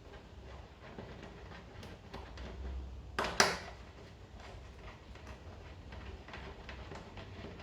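Light metallic clicks from a 10 mm socket or spanner undoing the motorcycle's fuel-tank bolts, with one sharp, louder clank a little over three seconds in.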